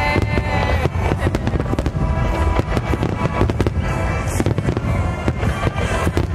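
A dense fireworks barrage: many aerial shells bursting in rapid succession, overlapping bangs with no break, while a song plays along with the display.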